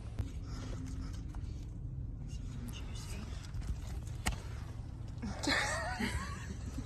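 Faint voices over a steady low hum, with a few light clicks.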